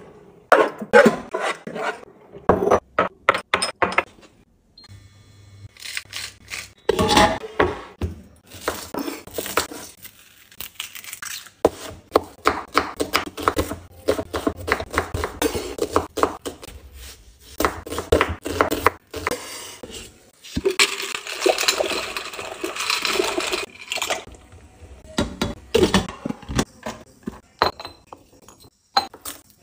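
A run of kitchen handling sounds: a drawer of spice jars sliding open with clicks and clinks, a knife knocking on a wooden cutting board, and a ceramic lid clinking off a garlic keeper near the end. Brief knocks come in quick succession, with a stretch of rustling noise about two-thirds of the way through.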